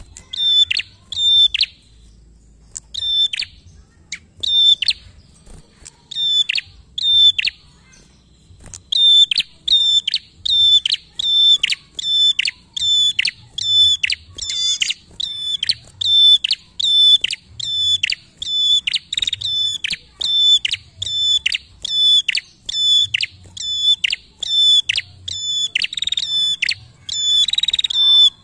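A tailorbird calling a short, sharp, high note over and over, each note ending in a quick downward flick. The notes come in scattered pairs at first, then settle a few seconds in into a steady run of about one and a half a second.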